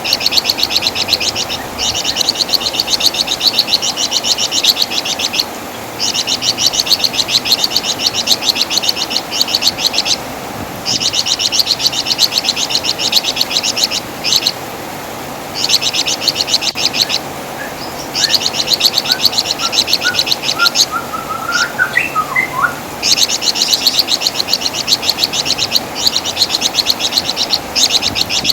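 Wergan jawa (flamboyan), the Javan fulvetta, singing a fast, high, rattling chatter in bouts of a few seconds broken by short pauses. A few softer, lower, scattered notes come about three-quarters of the way through.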